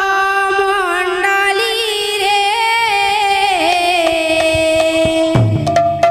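A woman singing a long, held, ornamented Sambalpuri kirtan line into a microphone, her notes wavering and sliding. About five seconds in, lower-pitched sound joins her held note.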